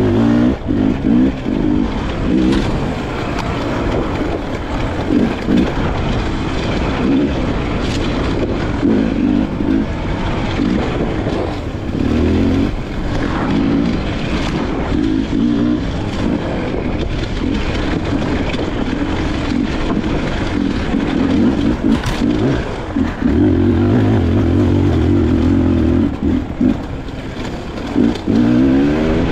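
Beta 300RR two-stroke dirt bike engine under way on a trail, the revs rising and falling continually with throttle and gear changes and climbing sharply near the end, with a few sharp clicks along the way.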